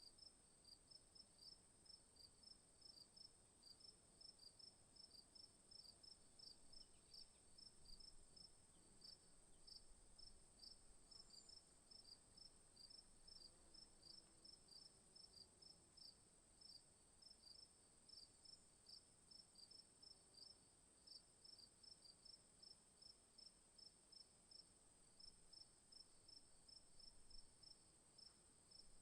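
Crickets chirping faintly: a steady high-pitched trill under regular short chirps, about two a second, that keep on without a break.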